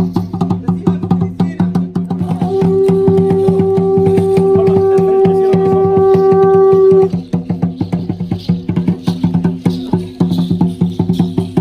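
Fast, steady drumming on a large upright ceremonial drum. A conch shell trumpet is blown in one long, steady note from about two and a half seconds in. The note cuts off abruptly at about seven seconds while the drumming goes on.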